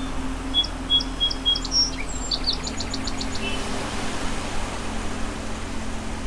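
A small bird chirping: a string of short, high notes, then a quick trill of about seven notes, falling silent about three and a half seconds in. Steady background noise and a low hum lie underneath.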